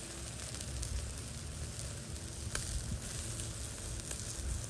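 Chicken pieces sizzling on the grate of a charcoal grill, with a few small pops and crackles scattered through.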